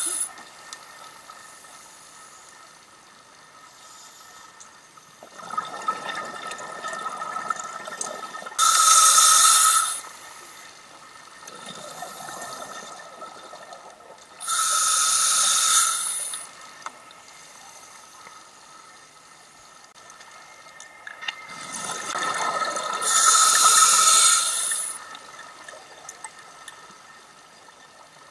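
Scuba diver breathing through a regulator underwater: three loud hissing breaths, each about two seconds long, come roughly every six to eight seconds. A lower bubbling rush runs between them.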